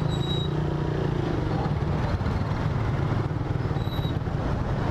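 Suzuki Raider 150R motorcycle's single-cylinder engine running steadily at low speed while filtering through slow traffic, mixed with the hum of surrounding cars and motorcycles.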